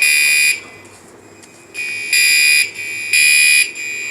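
Building fire alarm horns, System Sensor SpectrAlert Classics, sounding the temporal-three evacuation pattern: the last half-second blast of one group, a pause of about a second and a half, then the next group of three blasts starting about two seconds in.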